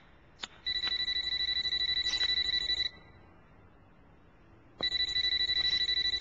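Household telephone ringing twice, a fast trilling electronic ring about two seconds long each time, with a pause of about two seconds between the rings.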